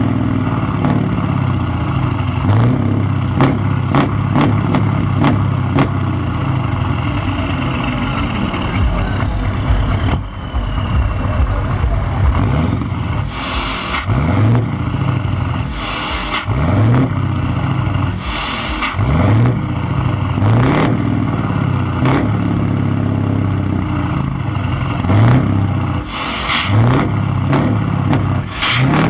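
Scania 164L 480's 16-litre V8 diesel running through an open, straight side exhaust pipe. It idles with a deep, uneven beat, then is blipped about seven times in the second half, each rev rising quickly and falling back to idle, several with a hiss above the exhaust note.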